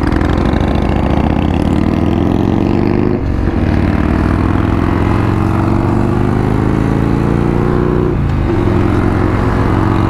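Motorcycle engine accelerating: its pitch climbs, drops at a gear change about three seconds in, climbs again, drops at a second shift about eight seconds in, then holds steady.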